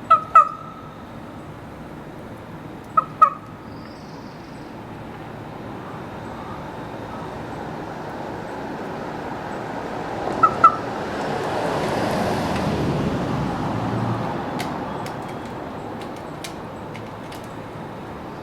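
Common raven squawking: three pairs of short, harsh calls, the pairs coming about three seconds and then about seven seconds apart. Midway a low rush of background noise swells and fades.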